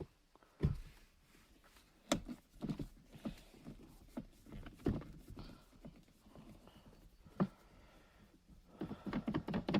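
Hard plastic shift-knob parts being handled and worked apart: a series of irregular knocks and clicks, coming thicker near the end as the plastic retainer piece is taken off the knob.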